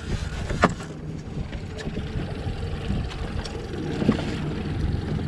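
Small outboard kicker motor running at trolling speed, a steady low drone mixed with water against the hull and wind on the microphone. A sharp knock sounds near the start and a softer one about four seconds in.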